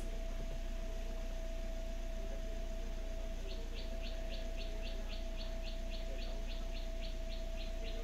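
A Suzuki Swift's 1.3-litre engine idles steadily, a little high at just over 900 rpm, heard from inside the cabin as a low hum with a steady thin tone over it. From about three and a half seconds in, a bird outside calls in a fast, even run of short high chirps, about three or four a second.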